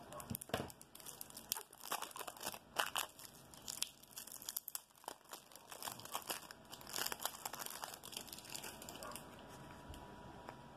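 Clear cellophane wrap around a stack of trading cards crinkling and tearing as it is pulled off by hand: irregular crackles that thin out near the end.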